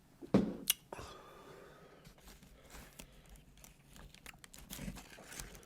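Close-miked crinkling and crunching of fast food and its paper wrapping, with a loud sharp crackle about half a second in and scattered small clicks after it.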